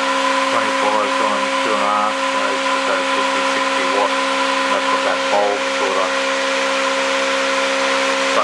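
Home-built angle-magnet pulse motor, a Bedini SG-style rotor with copper drive coils, running steadily: a constant hum with a higher steady tone above it and an even hiss over the top.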